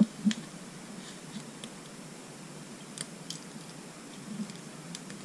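A few faint, scattered small metal clicks and scrapes: a feeler gauge and valve adjuster being worked against the rocker of a Suzuki GN250 cylinder head while the valve clearance is set. Between them there is only low room noise.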